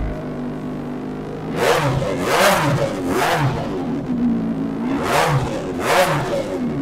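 Kawasaki Ninja 1000SX inline-four engine with an aftermarket Arrow exhaust, idling and blipped through a series of quick revs that rise and fall.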